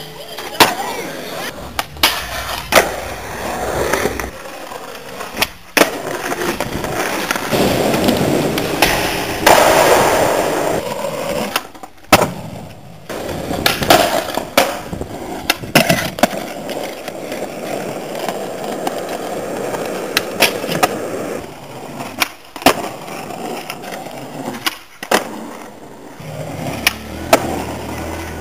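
Skateboard wheels rolling over concrete and asphalt, broken again and again by sharp clacks of the board hitting the ground.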